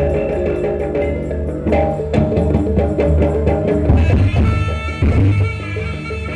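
Live kuda kepang accompaniment music: drums and other struck percussion beating over sustained pitched tones.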